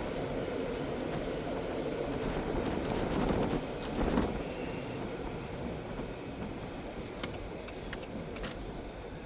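Steady road and engine noise of a car driving, swelling briefly about three seconds in, with a few faint clicks near the end.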